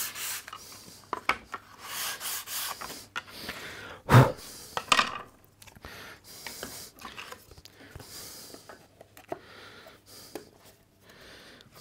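Hand sanding with 180-grit abrasive paper on a cork sanding block: a few short rasping strokes taking the corner edge off a thin wooden panel, chamfering its leading edge so it will slide into a groove. About four seconds in there is a single wooden knock, followed by fainter rubbing and light clicks of wooden pieces being handled.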